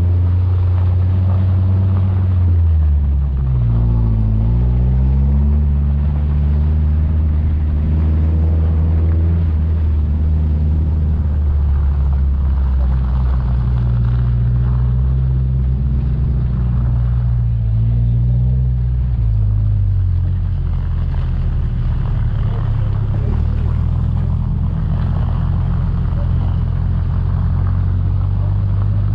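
Off-road 4x4's engine running steadily under load. Its pitch drops and climbs again a few seconds in, and changes once more about two-thirds of the way through.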